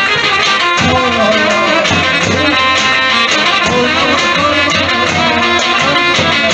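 Loud Turkish folk dance music played for a çiftetelli: a wind instrument plays a winding melody over a steady drum beat.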